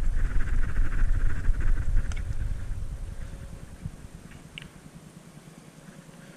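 Hands rubbed briskly together with a dry rasp and rumble, stopping about three seconds in; a couple of light ticks follow.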